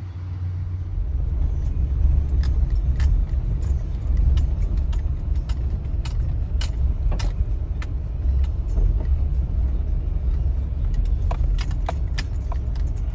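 A 2019 Subaru Forester driving over a bumpy dirt road, heard from inside the cabin: a steady low rumble of tyres and running gear, with scattered sharp clicks and rattles.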